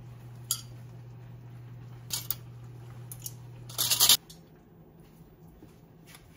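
Metal tongs clinking against a ceramic plate and bowl as sliced meat is piled onto a plate of tteokbokki: a few separate clinks, then a quick loud clatter about four seconds in. A low steady hum underneath stops right after the clatter.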